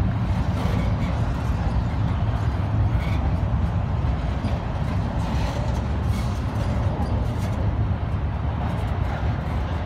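A train rolling past: the steady rumble of railcars on the track with a few faint clicks, easing slightly toward the end.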